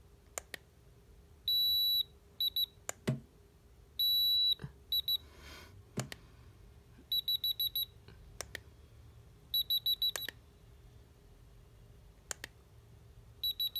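Handheld infrared thermometer beeping as it takes readings of a hot signal lens. There are two long high beeps, short groups of three beeps, and two runs of about six quick alarm beeps, with sharp trigger clicks in between.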